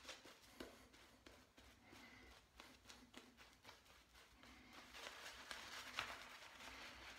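Faint, scratchy swishing of a synthetic shaving brush working lather over beard stubble, a little louder in the second half.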